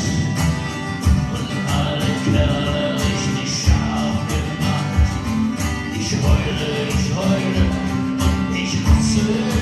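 Live band music: a song played with guitar over a steady beat.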